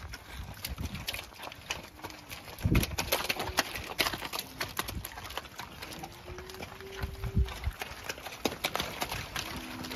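A herd of Angus cows walking and shuffling across a dirt yard: scattered hoof clicks and knocks, with a couple of low thumps about three and seven seconds in.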